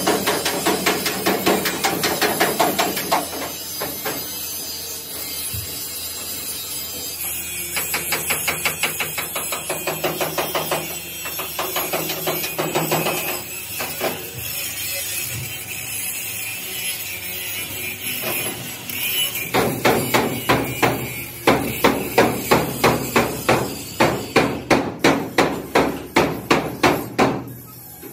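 Hand hammer beating on the sheet-steel frame of a damaged excavator cab to straighten it, in several runs of quick blows; the longest run, in the last third, goes at about three blows a second.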